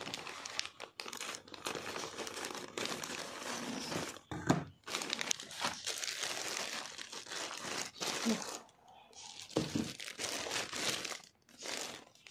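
Plastic courier mailer bag being cut open with scissors and handled, then a lunch bag in a clear plastic wrapper pulled out: uneven crinkling and rustling of plastic, with a sharper crackle about four and a half seconds in.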